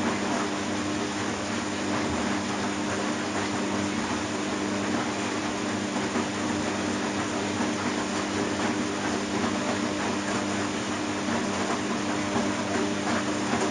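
Washing machine running: a steady motor hum with a constant noisy churn of the drum and water underneath, even throughout with no pauses.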